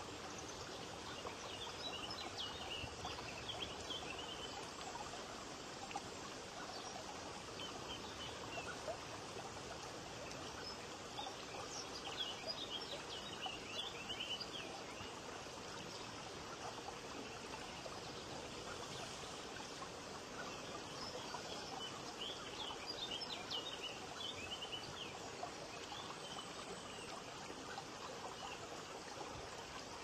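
Water from a stone-column garden fountain steadily trickling and splashing onto pebbles. High, short bird chirps come in three spells, near the start, in the middle and later on.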